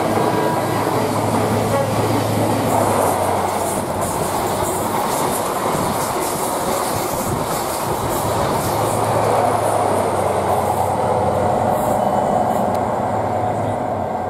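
A Class 43 HST (Intercity 125) diesel train passing at speed: a steady, loud rumble of wheels on the rails. The power cars' low engine hum is heard for the first few seconds, drops away while the coaches go by, then returns for a few seconds more.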